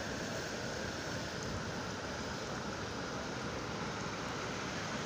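Muddy floodwater rushing over a low bank and across a flooded field, a steady, even rushing noise.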